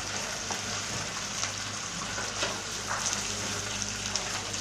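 Chicken pieces sizzling steadily in hot mustard oil with fried onions, with a few faint clicks of a spoon against the pan.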